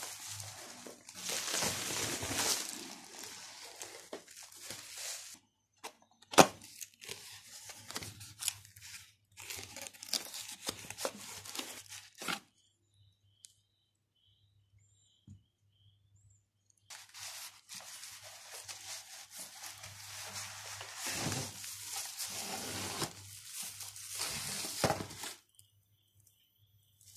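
Plastic wrap and a cardboard box being handled, crinkled and torn open by hand while a backdrop stand is unpacked. There is a sharp knock about six seconds in, and a quiet gap of a few seconds past the middle.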